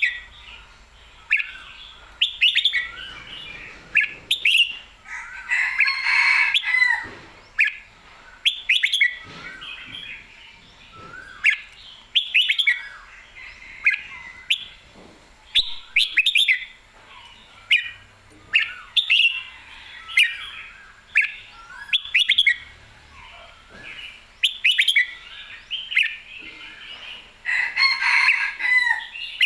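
Red-whiskered bulbul singing: short, bright whistled phrases repeated every second or two, with longer, busier bursts of song about six seconds in and again near the end.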